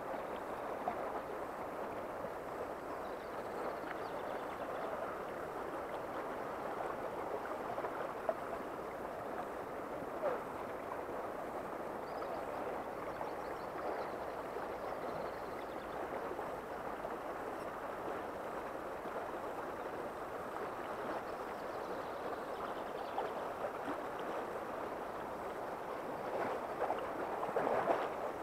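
Shallow river running over a gravel bed: a steady rush of flowing water, with a few faint clicks.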